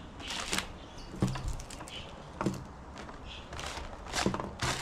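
Handling noise from small items being picked up and moved: a few separate light clicks and short rustles.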